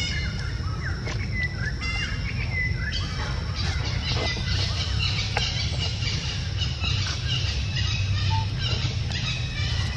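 Birds chirping, with many short, quick calls, over a steady low rumble.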